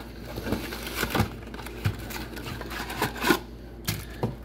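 Cardboard trading-card box and the wrapped packs inside it being handled and tipped: rustling with a few light taps and knocks.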